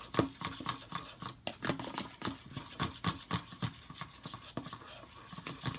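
A utensil stirring a mixture of shaving gel and detergent in a bowl, making irregular scraping and clicking strokes, several a second.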